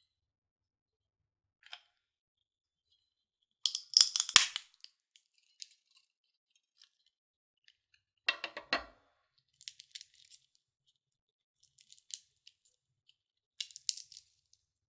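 A hand-held lever nutcracker crushes a walnut shell with a loud crack about four seconds in. Shorter crackles and snaps follow as the broken shell is pulled apart by hand.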